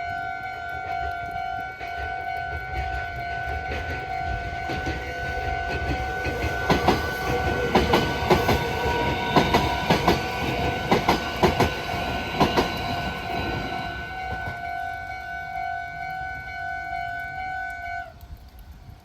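Japanese level-crossing alarm ringing steadily while a Meitetsu Hiromi Line train passes, its wheels clattering over the rail joints for several seconds midway. The alarm cuts off suddenly near the end, the sign that the crossing has cleared.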